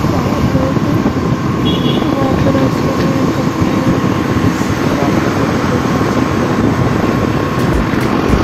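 Wind rushing over the microphone on a moving motorbike, with engine and road noise underneath as a steady loud roar.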